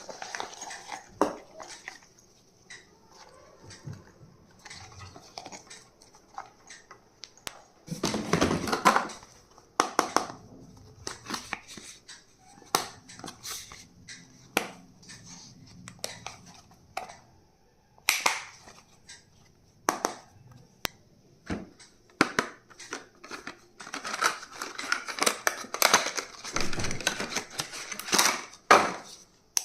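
Stationery and its packaging being handled: scattered sharp clicks and taps of small plastic items, with stretches of rustling and crinkling about eight seconds in and again for several seconds near the end.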